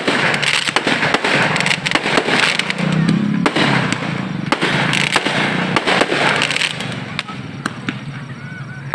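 Fireworks bursting overhead in a quick string of sharp bangs and crackles, thinning out near the end.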